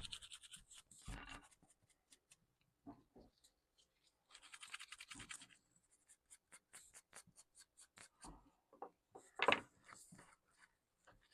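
Quick scratchy rubbing strokes from a laptop part being scrubbed clean by hand. A brief rustling patch comes about four seconds in, and a louder knock near the end.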